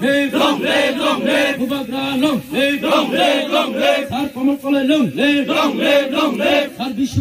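People chanting slogans, a short rhythmic phrase called over and over without pause.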